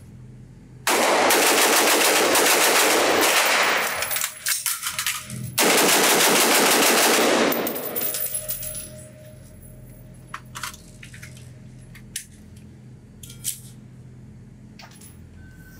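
Noveske Infidel AR-15 rifle fired as fast as the trigger allows on an indoor range: a quick string of shots, a pause of about two seconds with clicks as the empty magazine is dropped and a new one seated, then a second quick string. A few scattered light clicks follow.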